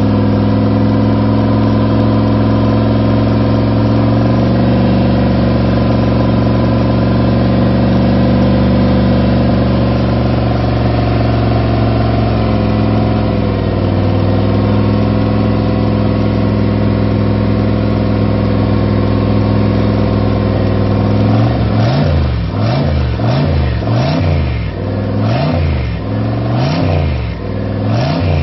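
Freshly rebuilt car engine, with new rods, pistons, cam, lifters and oil pump, running on its first start after the rebuild. It holds a steady fast idle for about twenty seconds, then is blipped into short revs in quick succession, a little more than one a second.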